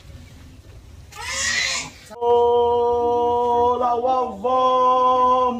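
A man's drawn-out ceremonial call of the Samoan ava ceremony, held loud on one steady pitch, with a brief dip about four seconds in before it is held again. A short hissing burst comes about a second in, before the call.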